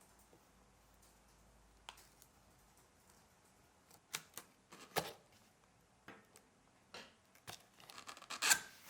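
Laptop packaging being handled and opened: short scrapes, clicks and rustles of cardboard and wrapping, in a cluster about halfway through and loudest near the end.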